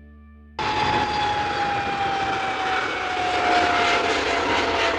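Airbus A310 twin-engine jet airliner taking off: steady jet engine noise with a high whine that slowly falls in pitch, cutting in suddenly about half a second in.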